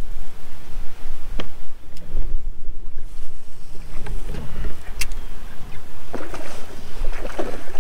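Wind buffeting the microphone in a steady low rumble, with sharp clicks about one and a half and five seconds in.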